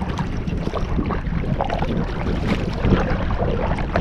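Wind buffeting the microphone over choppy lake water, with small waves lapping and splashing against a kayak hull as it is paddled.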